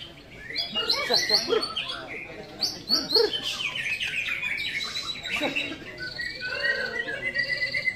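Caged white-rumped shamas (murai batu) singing in a bird-song contest: a fast, varied run of whistles, chirps and sweeps, with long rapid trills held about halfway through and again near the end.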